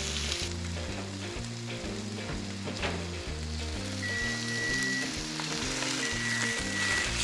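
Peacock bass fillets sizzling as they fry in butter in a frying pan, with background music carrying a steady bass line. A high steady beep sounds twice in the second half, about a second each time.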